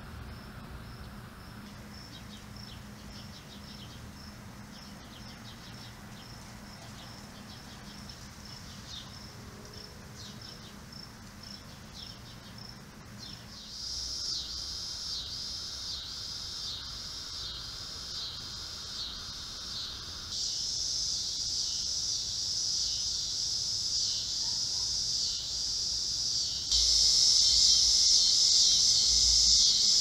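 Insects chirping in a steady repeating rhythm of about two chirps a second. The chirping grows louder in steps, about halfway through and again near the end. A low background hum runs under the first half.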